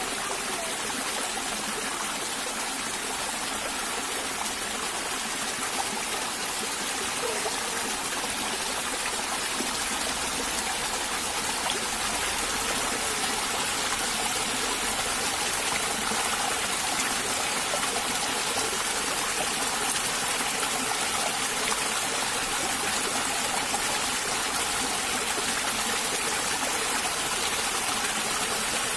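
Small stream pouring over rocks in a short cascade: a steady rush of water that holds even throughout.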